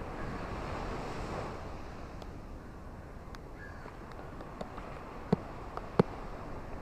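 Steady hiss of rain and ocean surf, a little louder in the first second and a half. From the middle on, scattered sharp ticks of heavy drops come through it, with two louder taps near the end.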